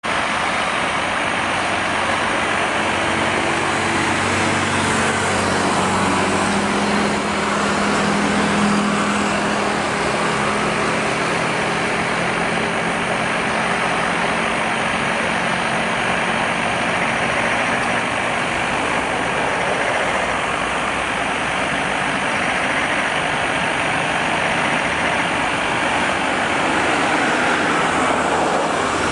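Airbus A330-343's Rolls-Royce Trent 700 turbofans at takeoff thrust, a loud, steady jet rumble with a low hum.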